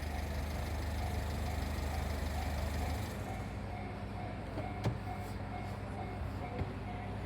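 Japanese railway level-crossing warning bell ringing over and over in an even pattern, over the low hum of a vehicle engine that drops away about three seconds in.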